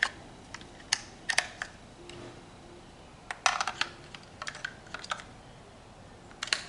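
Sharp plastic clicks and small rattles of two AA batteries being pushed into the battery compartment of a Blink video doorbell. The clicks come singly at first, then in a few quick clusters.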